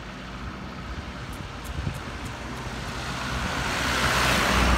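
A road vehicle approaching, its engine and tyre noise growing steadily louder and loudest near the end.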